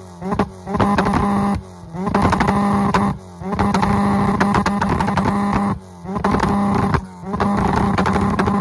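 K24A2-swapped Honda Civic engine held on its 6100 rpm two-step launch limiter through a Yonaka cat-back exhaust, popping and crackling in six or seven stretches with short dips in revs between them.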